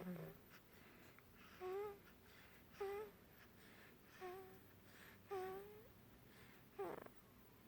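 A three-week-old baby snoring in sleep: four little squeaky, whistling snores about a second apart, with a short snuffling snort at the start and another near the end.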